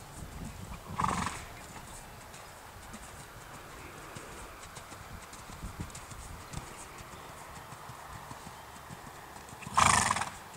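Dressage horse trotting on a sand arena, its hoofbeats soft dull thuds, with two short loud snorts through the nostrils, one about a second in and one near the end.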